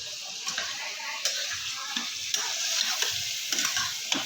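Chicken with onion, tomato and spice masala sizzling as it fries in a pan, while a spoon stirs and scrapes it around at an irregular pace.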